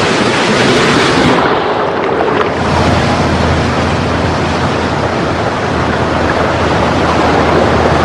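Wind buffeting the microphone over open sea, with waves washing. A low steady hum joins about three seconds in.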